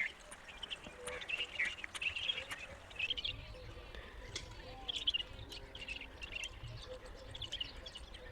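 Birds chirping in short, scattered high calls, several a second, over a faint low rumble.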